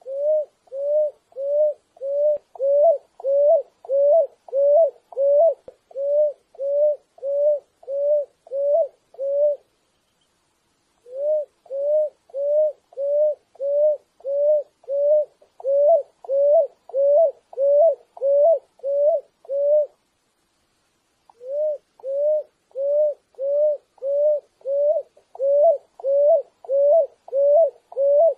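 Picui ground dove singing: a long run of short, low coos repeated about twice a second, each ending in a slight upward lilt. The series breaks off twice for a second or so, about a third and two-thirds of the way through, then resumes at the same pace.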